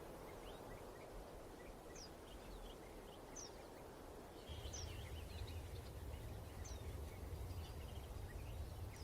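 Faint outdoor background: scattered short bird chirps over a steady hiss, with a low hum coming in about halfway through.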